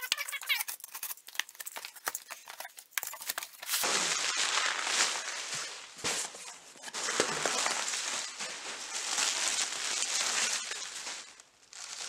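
A taped cardboard box being opened, with scattered small crackles and clicks. About four seconds in, a long spell of loud crinkling and rustling begins as bubble wrap and plastic packing are pulled out of the box, dying away near the end.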